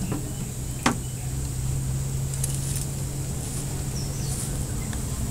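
A vehicle engine idling with a steady low hum, and a single sharp click about a second in.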